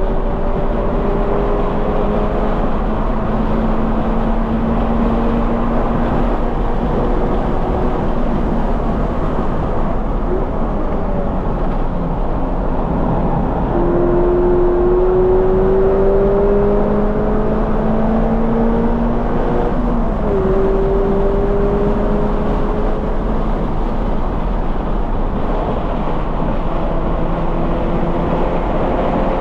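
2020 Toyota 86's flat-four engine through a Corsa cat-back exhaust, heard from inside the car under hard acceleration on track. The engine pitch climbs slowly and drops sharply at a gear change about two-thirds of the way in, over steady road and wind noise.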